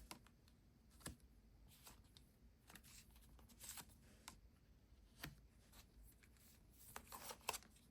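Faint rustles and soft taps of tarot cards being handled and laid down, a scattering of small sounds over a quiet room.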